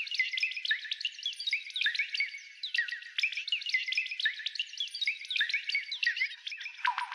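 Anime Clima Tact sound effect: a dense stream of quick, high electronic chirps and sparkly zaps, many a second. A deeper falling swoop comes in near the end as the effect starts over.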